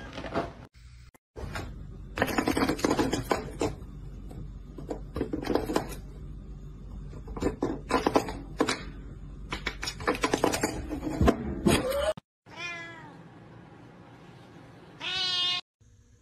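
Domestic cats meowing in short calls across several quick cuts. A long middle stretch holds loud, irregular sounds. Near the end come a falling meow and, shortly after, a rising one.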